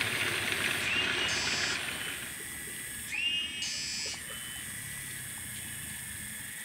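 Riverside ambience. Running water hisses for the first two seconds, then fades. A high whistled call, rising and then held, is heard twice, about two seconds apart.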